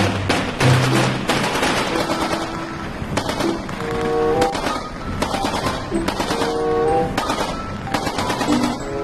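Heavy machine gun firing in rapid bursts, densest in the first second or so, then in shorter, scattered bursts. Background music with a melody comes in about three seconds in.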